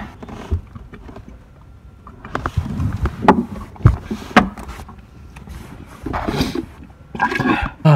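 Handling noises inside a cramped cardboard box: a plastic package rustling and a few sharp knocks against the box from about two and a half seconds in, with brief murmured voice sounds near the end.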